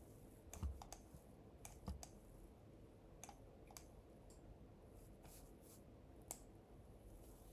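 Faint, irregular clicking of computer keyboard keys and mouse buttons, a dozen or so separate clicks.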